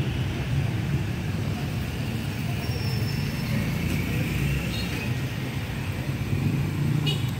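Steady low rumble of a vehicle's engine and road noise, heard from a moving vehicle.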